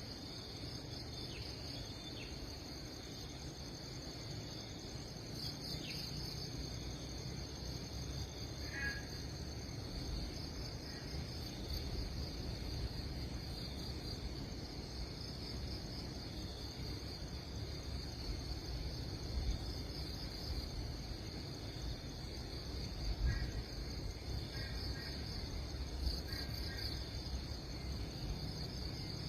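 A steady chorus of crickets or other insects, a high pulsing trill, over a low rumbling background noise. A few short bird chirps come about nine seconds in and again near the end.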